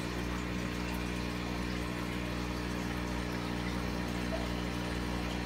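Aquarium water pump running: a steady low hum over an even wash of moving water.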